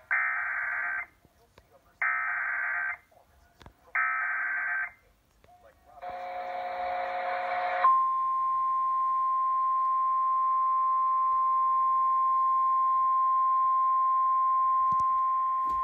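Emergency Alert System activation: three one-second bursts of warbling digital header tones, a second apart, then about two seconds of a harsh buzzing tone, then a long steady single-pitch attention tone. Together they signal a National Weather Service flash flood warning.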